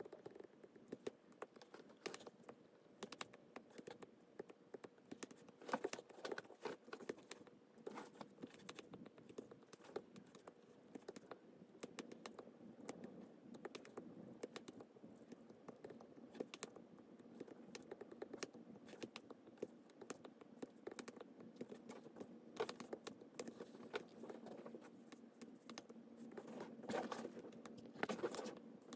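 Stylus tip tapping and sliding on a tablet's glass screen: a rapid, irregular run of light clicks, with a faint steady hum underneath.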